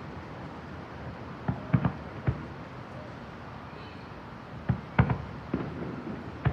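Fireworks bursting: a series of sharp booms, three about two seconds in and another four from about five seconds on, over a steady background hum of the crowd and outdoors.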